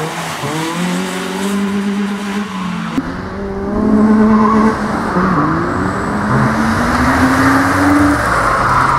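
Peugeot 106 rally hatchback's engine revving hard under acceleration, its pitch climbing steadily from about five to eight seconds in. Tyre noise grows as the car nears and corners at the end.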